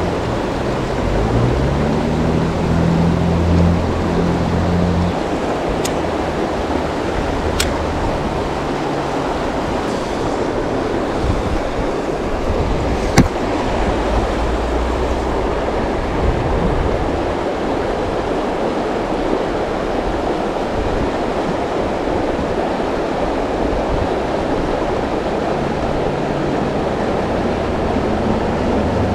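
Fast-flowing river water rushing steadily, with a single sharp click about thirteen seconds in.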